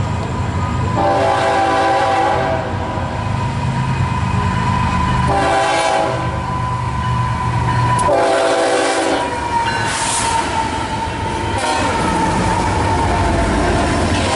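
Florida East Coast Railway diesel locomotive's air horn sounding the grade-crossing signal: a long blast, a short one, then a long one as it approaches the crossing. The crossing bell rings steadily underneath, and the locomotive's engine rumble builds as it passes near the end.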